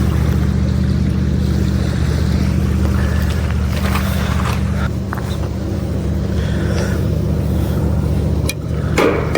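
A steady low engine-like drone that drops away about eight and a half seconds in, followed by a few knocks.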